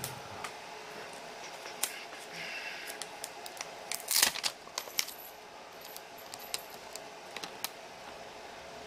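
Small sharp clicks and taps of tweezers and a plastic pry tool against a CR2032 coin-cell battery and its holder as the cell is worked into place, the loudest cluster about four seconds in. A faint steady hum runs underneath.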